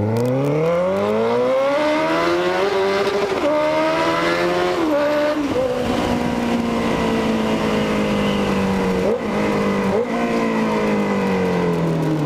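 Loud exhaust of a Honda CB motorcycle accelerating hard. The engine note climbs and drops sharply at two upshifts, holds steady while cruising, then falls in pitch as it slows near the end.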